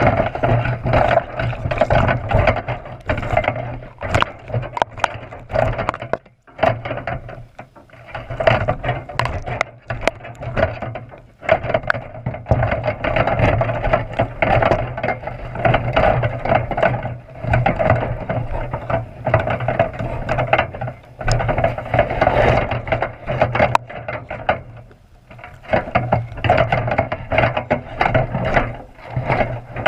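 Box-style crab trap being shaken and jerked underwater by a sea lion tugging at the salmon-head bait: a busy, muffled clatter of knocks, rattles and scrapes from the trap's frame and bait lines, heard through a waterproof camera housing. It pauses briefly a few times.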